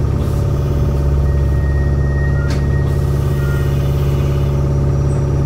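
Mizuma Railway 1000 series electric train giving a steady low electrical hum and rumble as it slows to a stop at a station, with a single light click about halfway through.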